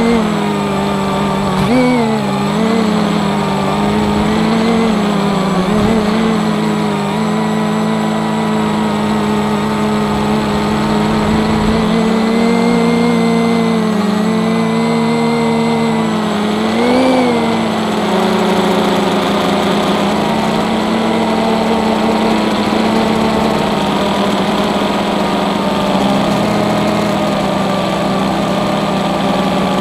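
FPV quadcopter's electric motors and propellers buzzing in flight, heard close up from the onboard camera. The pitch holds fairly steady, swelling briefly with throttle changes about 2, 6 and 17 seconds in, then runs evenly.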